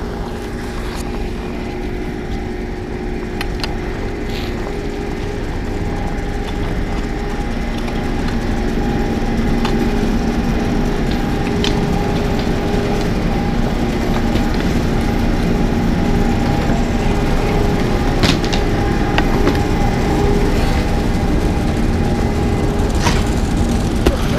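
Chairlift bottom-terminal machinery running, with the bullwheel turning and the loading conveyor carpet moving: a steady mechanical hum with an occasional sharp click, growing gradually louder.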